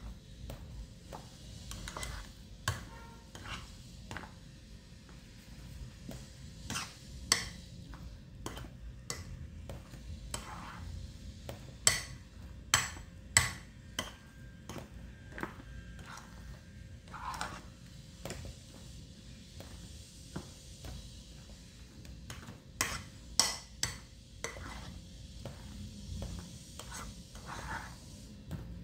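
A spoon stirring a thick, creamy ice cream mixture in a glass bowl, clinking and scraping against the glass at an uneven pace. Louder clinks come in clusters about halfway through and again near the end.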